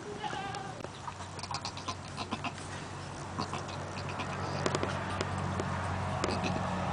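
Cashmere goats: a short, high bleat early on, then soft rustling and clicking in the straw as the doe licks and nuzzles her newborn kids, over a steady low hum.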